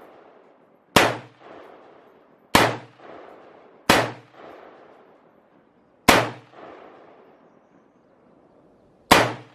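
Five loud rifle shots fired at uneven intervals, each ending in a short echoing tail that fades before the next.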